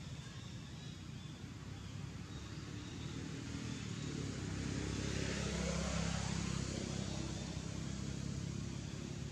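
A motor vehicle passing by: a low engine rumble and road hiss that swell to a peak past the middle and then fade.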